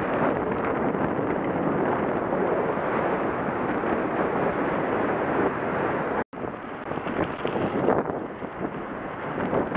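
Wind rushing over the microphone of a camera riding on a mountain bike, mixed with the rumble of the bike's tyres rolling over a gravel road. The sound cuts out for an instant about six seconds in, then carries on somewhat quieter.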